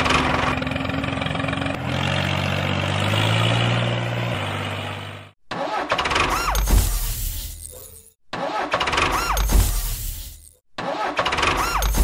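An engine-like vehicle sound: a steady pitched hum that shifts pitch for about five seconds, then breaks off suddenly into three short, similar bursts, each with a low thump, separated by abrupt silent cuts.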